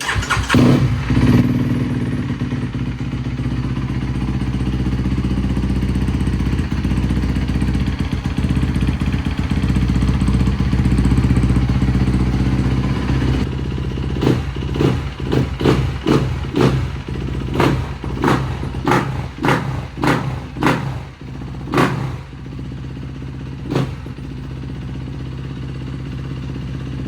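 2025 Kawasaki KX250 four-stroke single-cylinder dirt bike engine starting up and idling after a fresh oil and filter change. About halfway through it is revved in a string of about ten quick throttle blips, with one more a couple of seconds later, then settles back to idle.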